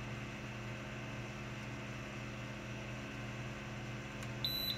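Steady low hum with a faint hiss, and near the end one short high beep from an RKI GX-6000 gas monitor as a key on its keypad is pressed.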